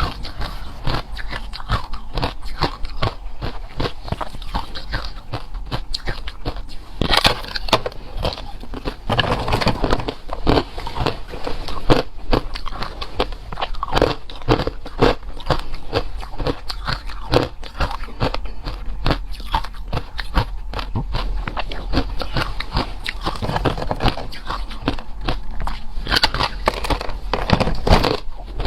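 Hard ice being bitten and chewed close to the microphone: a rapid, continuous run of crunches and cracks.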